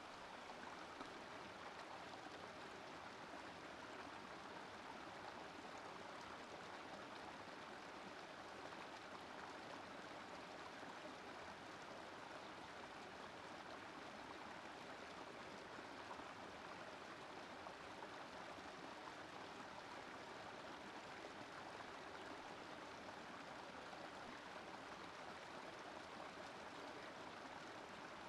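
Small rocky woodland brook flowing over stones in a low cascade: a steady, faint rush of running water.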